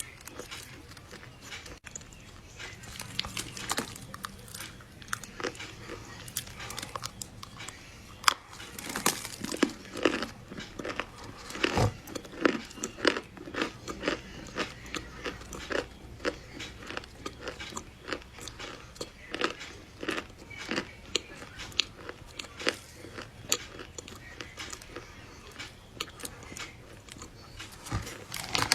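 Close-miked biting and chewing of a large chunk of crunchy chocolate dessert: a dense, irregular run of crunching crackles and clicks, getting louder and busier about a third of the way in.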